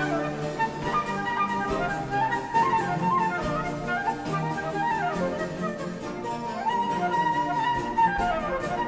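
Instrumental background music: a melody running up and down in stepwise runs of notes over a steady lower accompaniment.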